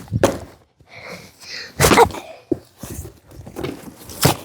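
A pumpkin being smashed: three dull thuds about two seconds apart.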